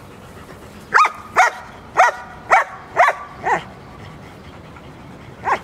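A dog barking: six short barks about two a second, then a single bark near the end.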